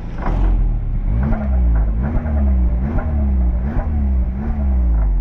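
Exhaust note at the tailpipe of a Peugeot-Citroën EP6CDT 1.6-litre turbo four-cylinder engine running, its revs rising and falling about five times over a steady low rumble.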